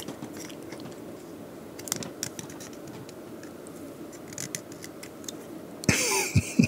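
Small hard-plastic clicks and scrapes as the hinged parts of a 1988 McDonald's Happy Meal transforming toy are pried open and folded into robot form. Near the end comes a brief louder sound with a falling pitch.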